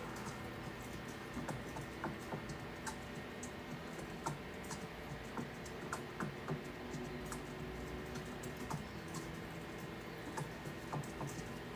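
Irregular light clicks and taps, a few a second, over a steady faint hum.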